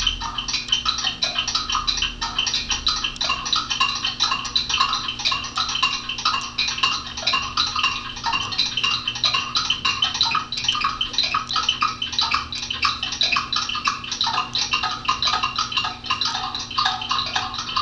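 Many clocks ticking at once, a dense, overlapping clatter of ticks that keeps up steadily throughout.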